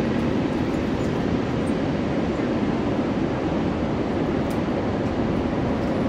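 Large ocean waves breaking in heavy surf: a loud, steady, unbroken wash of noise.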